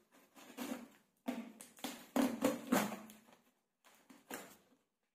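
Cardboard shipping box being handled: hands rubbing and scraping against the cardboard and tape in a run of uneven scrapes, loudest in the middle and fading near the end.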